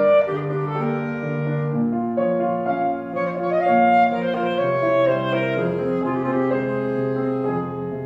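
Clarinet playing a melody in long held notes over a piano accompaniment.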